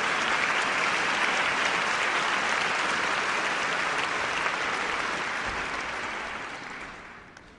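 Audience applauding after a choir performance, the clapping dying away over the last two seconds or so.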